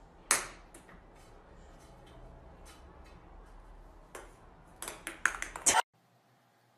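Cat batting at a wand toy: a few sharp taps and clicks, then a quick run of them near the end that cuts off suddenly.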